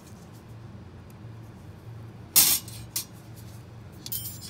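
Stainless-steel orthodontic wire cutter set down into a stainless-steel instrument cassette: one loud metal clatter about halfway through, a sharp click just after, and a brief light metallic jingle near the end.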